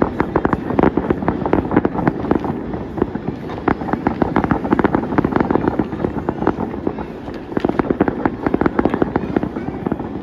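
Fireworks display: a dense, rapid barrage of bangs and crackling pops over a continuous low rumble, never letting up.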